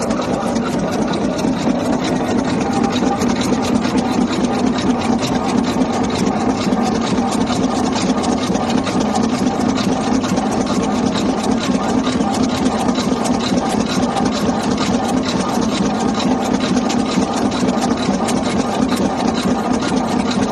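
Expanded metal mesh machine running steadily: its press strokes rapidly as it slits and stretches sheet metal into diamond mesh. The strokes make an even, fast clatter over a steady low hum.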